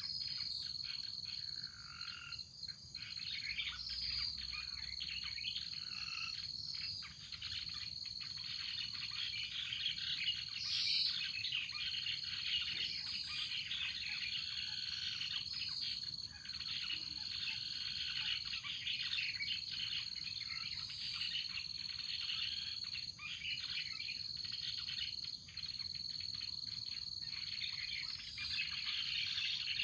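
Many birds chirping and calling together over a steady high-pitched insect drone, a busy morning chorus.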